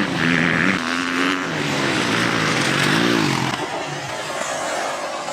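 Motocross bike engine running under throttle, its pitch climbing and falling as the rider works the throttle, with one quick rev up and back down about three seconds in.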